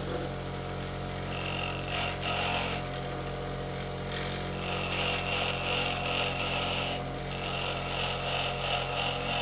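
Bench grinder motor running steadily while a dull steel twist drill bit is held against its grinding wheel to sharpen the cutting edge. The grinding comes in several passes of a few seconds each, starting about a second in.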